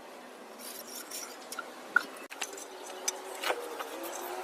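Scattered light clicks and taps, with one sharp click about two seconds in.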